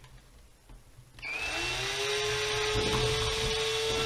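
Cordless drill starting about a second in. Its whine rises briefly, then it runs steadily at a constant speed as it drills through a black plastic disc into a round wooden board.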